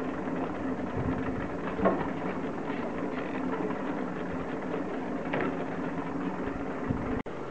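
Ski lift bullwheel and haul rope running: a steady mechanical hum with a light clank about two seconds in and another about five seconds in. The sound cuts out suddenly for a moment near the end.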